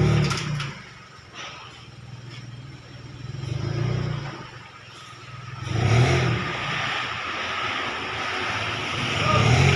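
V6 engine of a custom-built Lamborghini SVJ replica revving in repeated swells that rise and fall, loudest about six seconds in and near the end.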